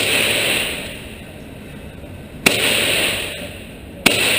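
Three handgun shots, one at the very start, one about two and a half seconds in and one near the end, each followed by about a second of echo.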